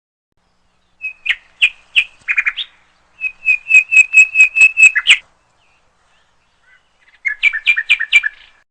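Recorded bird chirping, played as the parrot's sound: three quick runs of short, high, clear notes, the middle run the longest and loudest at about five notes a second.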